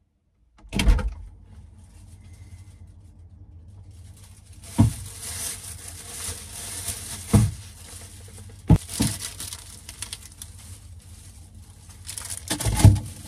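Thin plastic shopping bag rustling and crinkling as a hand rummages in it, with a few sharp knocks of items being handled. The loudest knocks come about a second in and near the end.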